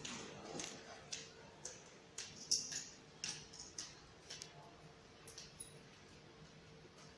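Small sharp clicks and taps from a children's ride-on motorbike's plastic parts being handled and fitted, as its training wheels go on: about a dozen in the first few seconds, then only a few.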